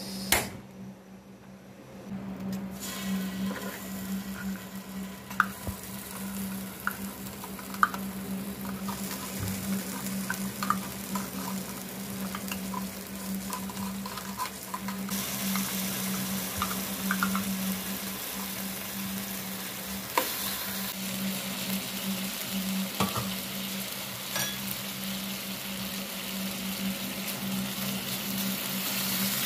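Canned corned beef sizzling in a nonstick frying pan, with a metal spoon clicking and scraping against the tin and the pan as the meat is scooped out and spread. A sharp knock comes right at the start.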